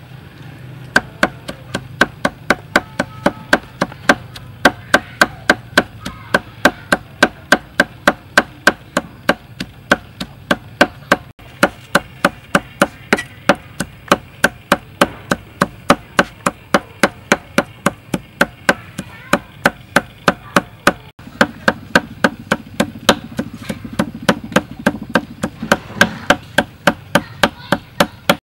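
Metal cleaver chopping red chilies on a chopping board: a steady run of sharp knocks of the blade on the board, about three a second.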